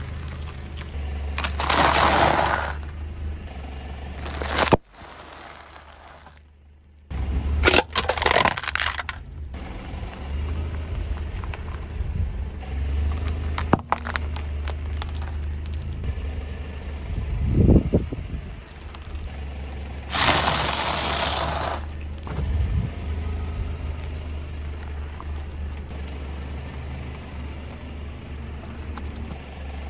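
A car tyre rolling slowly over small foods and crushing them: several separate loud crunches and sharp cracks a few seconds apart, over a low steady hum.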